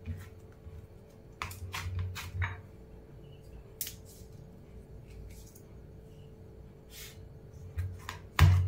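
Hands kneading and pressing warm cooked semolina dough on a steel plate: scattered light knocks and scrapes as fingers and palms hit the metal rim, with a louder thump near the end.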